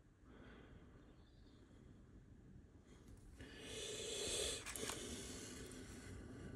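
Near silence, then a soft rustle of fingers picking through rubber O-rings in a plastic organizer box, with a couple of light clicks near the end.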